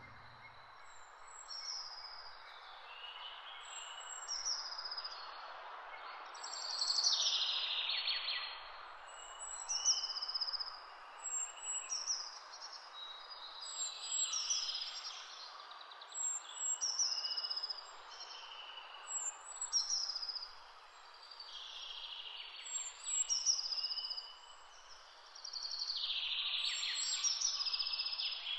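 Songbirds chirping in short, repeated calls every second or two over a steady background hiss, like a nature-sound ambience.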